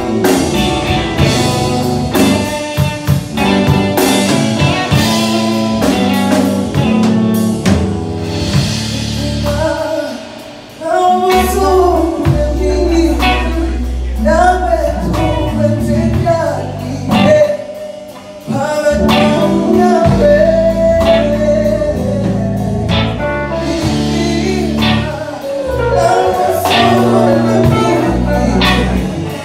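Live band playing a song: a lead singer over electric guitar, electric keyboard and drum kit. The band drops back briefly twice, about ten and eighteen seconds in.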